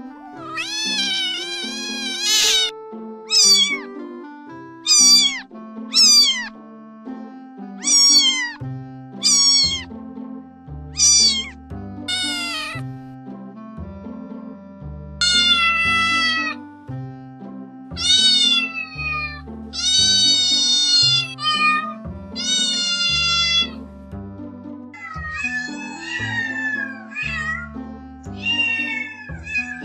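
Domestic cat meowing again and again, a string of drawn-out falling meows about a second or two apart, over background music with a bass line that comes in about nine seconds in.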